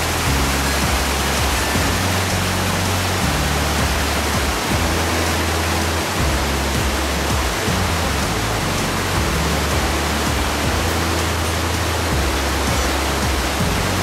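Steady rush of spring water tumbling over rocks, over background music with a low bass line that shifts every second or two.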